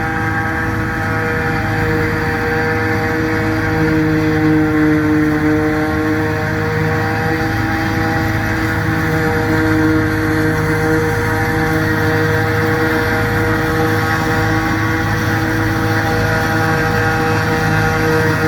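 Dania D5500 forage harvester chopping maize, its diesel engine running steadily under load with a slight wavering in pitch.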